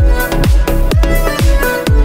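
Electronic dance music with a deep kick drum about twice a second under held synth notes.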